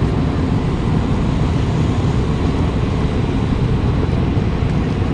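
Loud, steady low rumbling noise.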